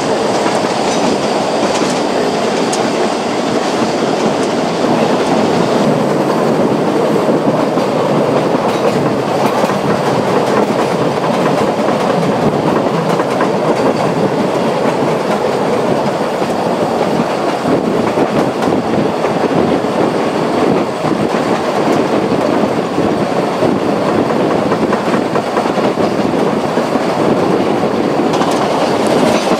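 Wheels of narrow-gauge passenger carriages running over the track, heard from the open end platform of the train: a loud, steady running noise.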